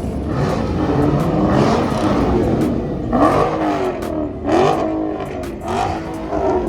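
Loud car engine revved again and again, each rev sweeping up and falling back in pitch, with sharp crackling pops.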